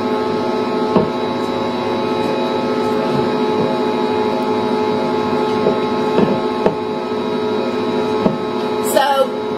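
Electric mixer running steadily with a constant hum, beating cake batter. A few faint light taps sound over it.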